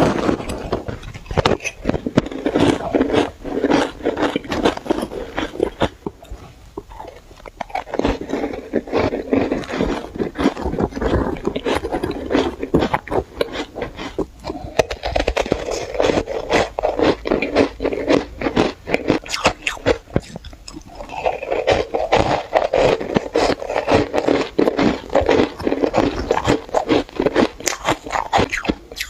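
Powdery shaved ice being bitten and chewed close to the microphone: dense, continuous crunching in long runs, broken by three brief pauses.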